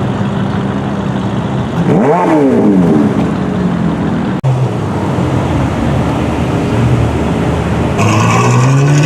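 Car engine idling, blipped once in a quick rev that rises and falls in pitch about two seconds in. After a brief cut, engines idle again, and near the end an engine revs up, its pitch rising.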